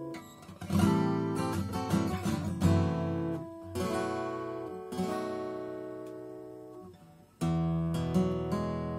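Aria G400 dreadnought acoustic guitar played fingerstyle. A quick run of plucked notes comes first, then a chord is left to ring and slowly fade for about three seconds, and a new chord is struck near the end.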